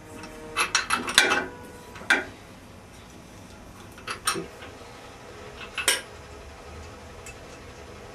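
Sharp metallic clinks and taps of hand tools on the steel studs and split pins of a generator's flywheel coupling being fitted by hand: a quick cluster of clinks in the first second and a half, then single clinks about two, four and six seconds in.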